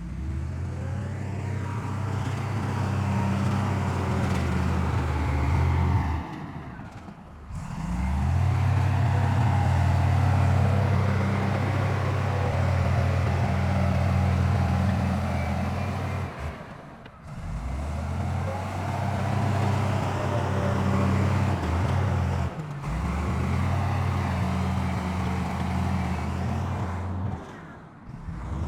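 Heavy diesel engine of an earthmoving machine running steadily with a deep hum. The sound breaks off briefly and starts again four times.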